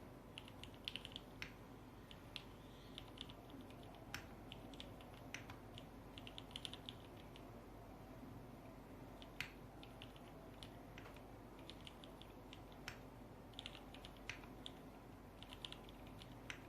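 Typing on a Duck Eagle v3 mechanical keyboard with lubed Cherry MX Black linear switches, a polycarbonate plate and GMK keycaps: scattered single keystrokes mixed with short quick runs of several keys.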